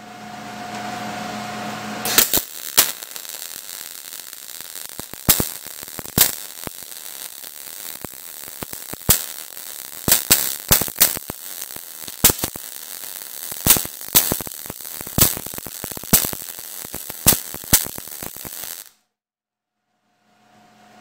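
MIG welding arc on 14-gauge galvanized steel, crackling steadily for about seventeen seconds and broken by many loud, irregular pops, then cutting off sudden. The pops and heavy spatter come from the zinc coating burning off ahead of the weld. A steady hum plays for the first two seconds, before the arc strikes.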